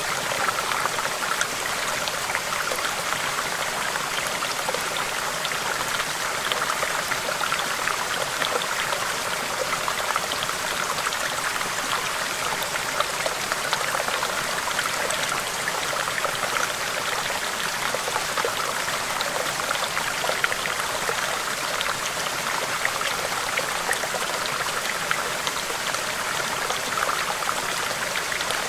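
Small stream babbling over rocks: a steady rush of flowing water, with many small splashes and trickles.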